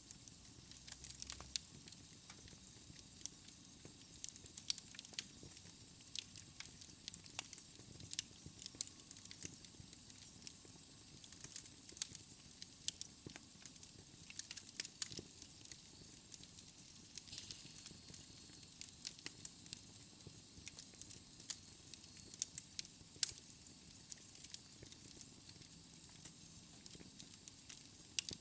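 Fire crackling: a steady soft hiss with many sharp pops and snaps at irregular intervals, a few louder than the rest.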